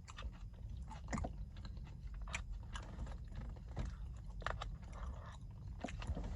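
A person chewing a mouthful of meat and rice close to the microphone, with scattered wet mouth clicks and smacks.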